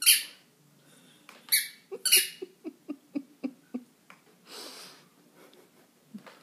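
Kong mini squeaky tennis ball squeaking as a dog bites down on it: three loud, high squeaks, at the start and twice close together a moment later. Then comes a quicker run of shorter, lower squeaks or chomps, about three a second, and a brief breathy puff.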